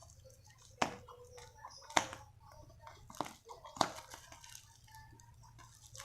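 Packaging being handled and opened by hand: four sharp clicks or snaps spread about a second apart, with faint crinkling between them.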